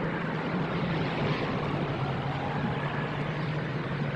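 Blizzard wind blowing in a steady rushing noise.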